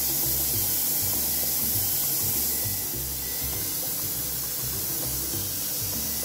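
Gas stove burner hissing steadily, with background music carrying a low pulsing beat underneath.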